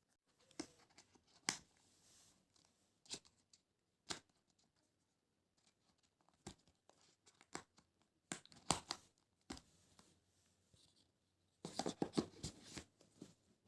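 Packaging being handled and torn open by hand: scattered short rustles and clicks, with two busier bursts of tearing and crinkling, one past the middle and one near the end.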